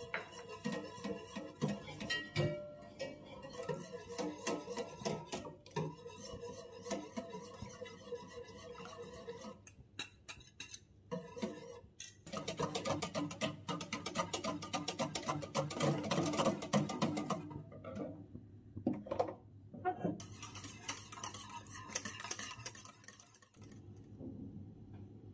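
Soft instrumental music, then from about halfway a wire whisk beating rapidly against the sides of an enamel saucepan, mixing milk and egg for a custard, in two spells with a pause between.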